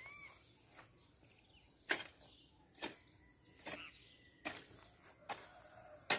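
Hoe chopping into weeds and soil, a sharp strike about once a second, six in all, starting about two seconds in. Faint bird chirps near the start.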